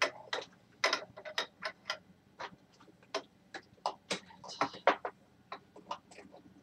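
Irregular plastic clicks and taps, several a second, from handling the Hoover SteamVac Deluxe carpet cleaner's body and cord hooks while the power cord is wrapped and tucked.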